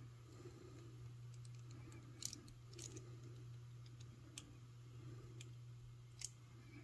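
Small metal clicks of jewelry crimping pliers closing on a wire wrap, squeezing the cut wire ends flat, about five sharp clicks at uneven intervals over a steady low hum.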